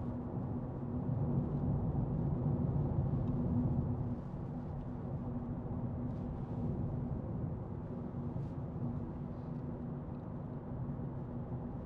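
Interior noise of a 2021 Nissan Micra being driven: the steady hum of its 1.0-litre turbo three-cylinder engine over low tyre and road rumble, easing slightly about four seconds in.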